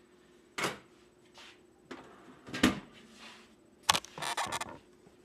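Several sharp clunks and knocks of things being handled on an electric stove top, with quieter rustling between them. The loudest knock comes about two and a half seconds in.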